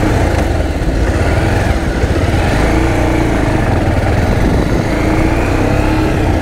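Motorcycle engine running as the bike pulls away from a stop and rides on along the road, its pitch rising a little twice as it picks up speed, under a steady rumble of wind on the microphone.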